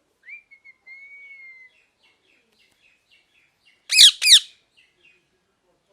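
A pet parrot gives a soft, drawn-out whistle, then two loud, harsh squawks in quick succession about four seconds in, each falling in pitch.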